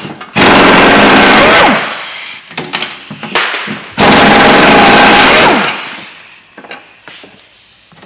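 Pneumatic air hammer with a punch bit driving out a rear shock absorber mounting bolt: two loud bursts of rapid hammering, each about a second and a half long and falling in pitch as the tool slows at the end, with lighter knocks between.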